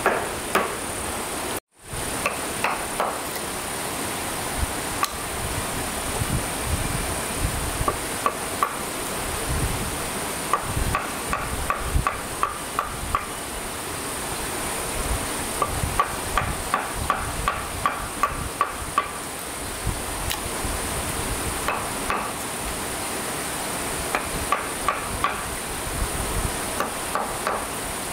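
Hammer striking wood in runs of quick, even blows, about three to four a second, with pauses between the runs, over a steady high buzz of insects.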